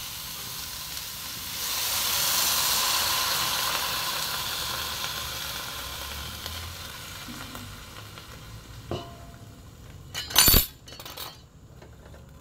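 Food frying in a wok, swelling into a loud sizzle about a second and a half in as ingredients are tipped in from a steel bowl, then slowly dying down. Near the end, a sharp metallic clank.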